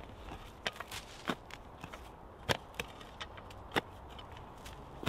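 Folding entrenching-tool spade digging into soft peaty soil: several sharp chops of the blade going in, about one a second, with faint scraping between.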